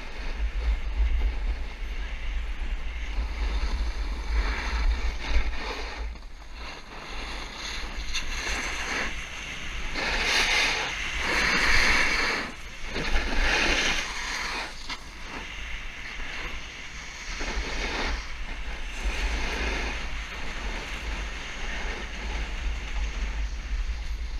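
Wind buffeting the camera microphone as a snowboard rides fast downhill, with the board scraping and hissing over the snow in swells, loudest about ten to twelve seconds in.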